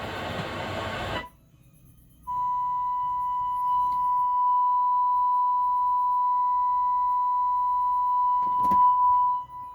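Music playing through the Marantz 2238B stereo receiver stops about a second in; a second later a steady 1 kHz sine test tone starts through the amplifier and holds, used to test the repaired receiver's output. A short crackle comes near the end.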